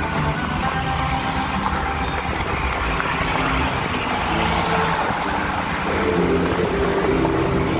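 Steady road and engine noise heard inside a car cabin cruising on a freeway.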